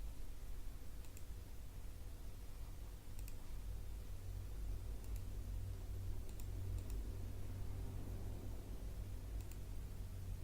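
Faint computer mouse clicks, about six spread irregularly over several seconds, over a steady low hum.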